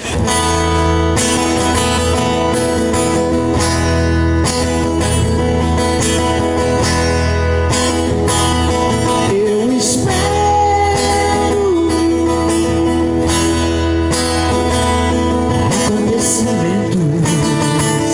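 Acoustic guitar (violão) strummed in a steady rhythm, playing a pop/MPB song live. A singer's voice comes in about halfway through, holding and bending a few notes, and again near the end.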